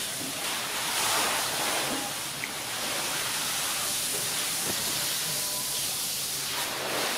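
A steady hiss of background noise, even throughout, with a faint click or two.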